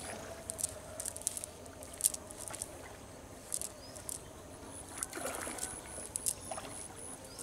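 Cast net being gathered by hand, with faint scattered clicks and rustles from the mesh and its weights. A high short chirp repeats a few times a second in the second half.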